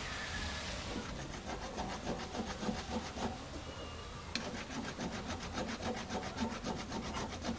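A flat hand file rasping across a cast metal blank in quick repeated strokes, starting about a second in, with one sharp tick partway through.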